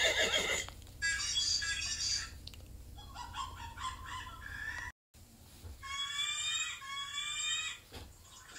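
A string of short animal calls spliced one after another, with a sudden cut about five seconds in. Near the end come two rising calls in quick succession.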